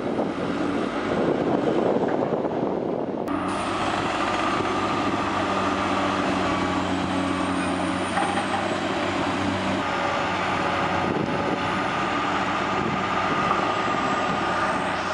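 Heavy vehicle engine running steadily under load. About three seconds in the sound changes abruptly from a rough, noisy mix to a steadier engine note.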